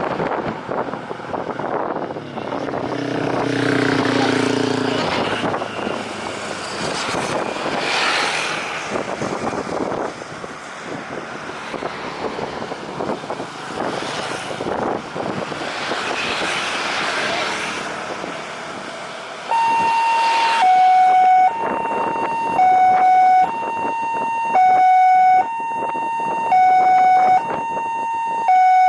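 Road traffic passing, with swelling engine and tyre noise. About two-thirds of the way in, an electronic two-tone siren starts, switching between a high and a low tone about once a second.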